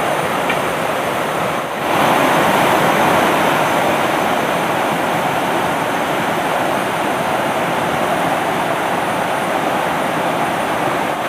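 Shallow rocky river rushing through white-water rapids over boulders: a loud, steady wash of water noise, dipping briefly about two seconds in.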